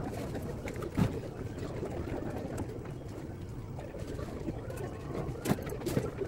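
Steady low rumble of outdoor background, with a sharp click about a second in and two more near the end, and faint short bird chirps in the second half.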